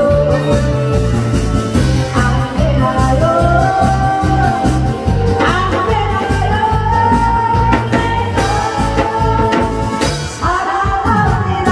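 A fast song sung live over an amplified backing track: the voice holds and slides between long notes above a steady bass beat.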